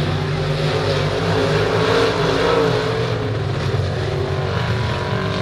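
Several dirt-track race cars' engines running together as the field circles the oval: a continuous drone whose pitch wavers up and down as the cars go around.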